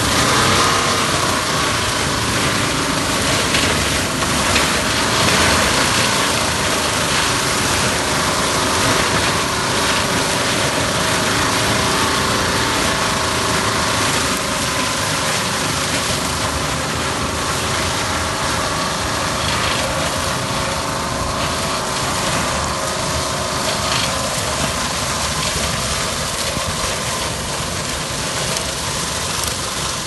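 Hualand 0890 round baler with cutter, tractor-drawn, working through cornstalks: a steady mechanical clatter of the baler's chains and gears over the tractor's engine, growing a little fainter toward the end.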